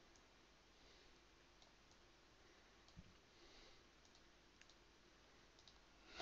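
Near silence, broken by a few faint, scattered clicks of a computer mouse, with a soft thump about three seconds in.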